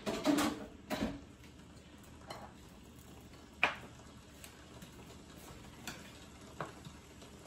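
Chicken pieces frying in oil in a non-stick pan over high heat, a low steady sizzle with a few sharp clicks and ticks scattered through it, the loudest about three and a half seconds in.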